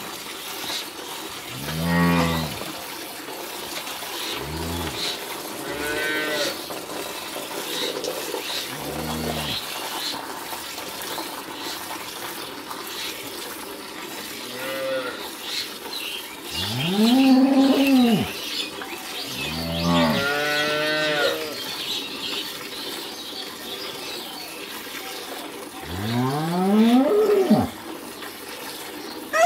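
Cattle mooing several times, the loudest calls about two-thirds of the way through and a last call near the end that rises in pitch. Beneath them, the faint squirts of hand-milked milk go into a metal bucket.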